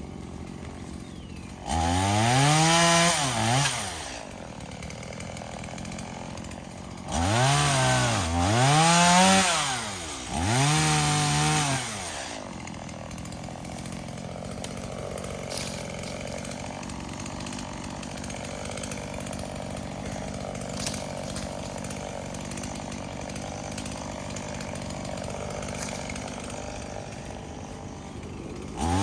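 Stihl MS170 two-stroke chainsaw idling and revved up four times in the first half, each rev rising and falling in pitch. It then idles steadily for the rest.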